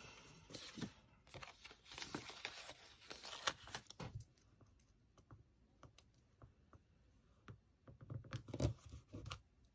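Paper handling: a sticker sheet crinkling and a planner sticker being peeled off its backing in the first few seconds, then scattered light taps and rubs of fingers on paper. A few louder knocks and a soft thump about eight to nine seconds in as hands press down on the planner.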